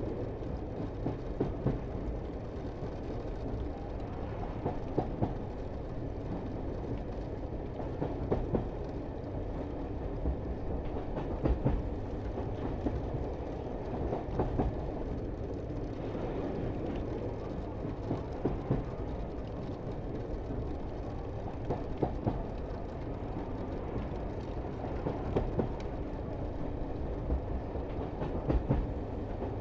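Cog railway train running: a steady low rumble with irregular sharp clicks and knocks from the wheels and track.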